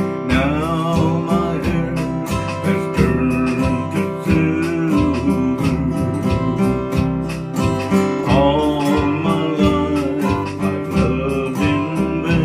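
Country ballad played on a strummed acoustic guitar over a steady bass line. A wavering lead melody comes in at the start and again about eight seconds in.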